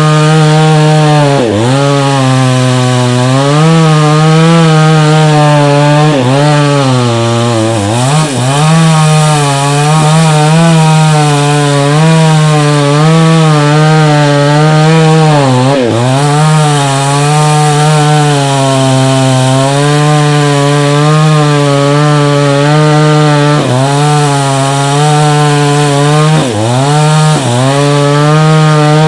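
Two-stroke chainsaw running at full throttle while cutting into a tree trunk, its engine note dipping briefly several times as the chain bogs under load.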